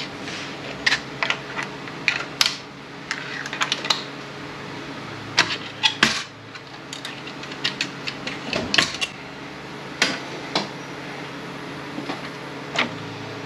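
Metal transmission parts clicking and clinking as the internals of an FW6AEL automatic transmission are handled and worked apart, in short irregular strikes, the loudest a little before the middle. A steady low hum runs underneath.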